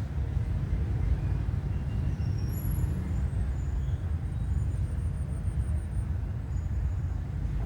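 A steady low rumble, with a few faint, short high chirps over it.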